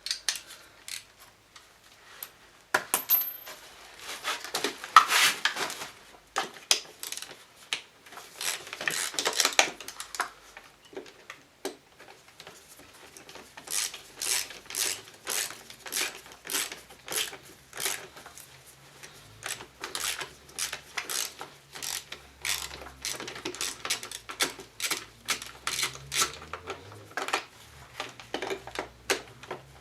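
Hand tools working on a scooter engine while the carburettor is unbolted: scattered metal clinks and knocks, then a run of evenly spaced clicks, about two a second, through the second half.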